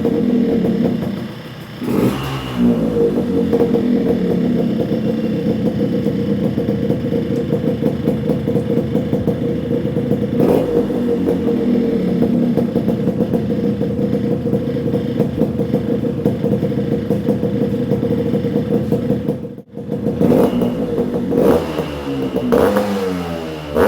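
Two-stroke motorcycle engine running through a homemade expansion chamber exhaust, held at a steady high speed with short rev blips about two and ten seconds in. The sound cuts out briefly just before twenty seconds, then the engine is revved repeatedly up and down near the end.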